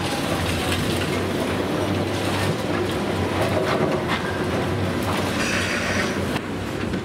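Caterpillar demolition excavator's diesel engine running under load while broken concrete and brick clatter and rattle down from the building being torn apart.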